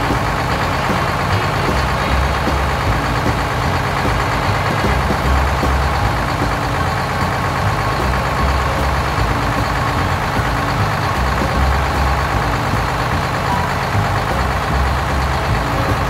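Heavy truck engine running steadily, used as the sound of a dump truck driving along, with a low throb that comes back about every second and a half.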